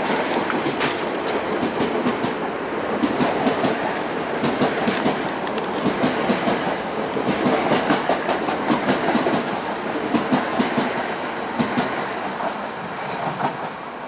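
ITX-Cheongchun electric multiple unit running through the station, its wheels clattering over the rail joints in a quick string of clacks. The sound fades as the train moves away near the end.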